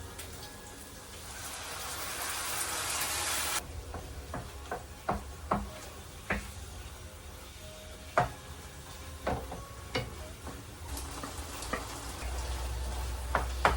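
Ground pork giniling frying in a pan with a spoon stirring, knocking and scraping against the pan in short irregular clicks. A louder hiss builds over the first few seconds and cuts off suddenly.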